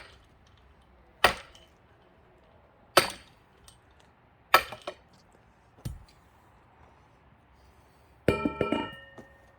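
Axe blows splitting a thick pine log: five sharp strikes about a second and a half apart. Near the end comes a ringing metal clang with a rattle, as the axe head works loose on its handle.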